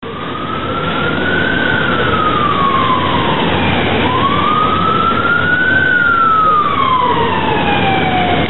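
Emergency vehicle siren in a slow wail, rising and falling twice, each sweep about four seconds long, over a steady rushing noise.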